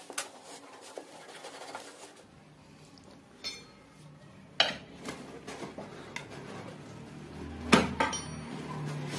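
Hand tool work on a Honda CD 70 motorcycle's air intake: scattered metal clinks and knocks from a T-handle tool and loose metal parts being handled. A few sharper knocks come about three and a half and four and a half seconds in, and the loudest near the end.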